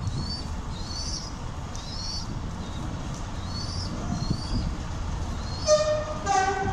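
Two-tone horn of Class 45 'Peak' diesel locomotive 45108 in Bury tunnel: a short high note, then a lower note, near the end, over a steady low rumble. A small bird chirps about once a second before the horn.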